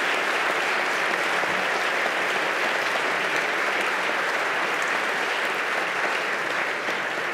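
Applause from a large audience, many people clapping at once in a steady, dense patter that eases off slightly near the end.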